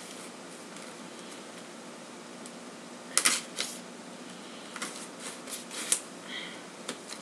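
Accessories and their packaging being handled: a few short sharp clicks and rustles, first about three seconds in, then a cluster in the second half, over a steady low hiss.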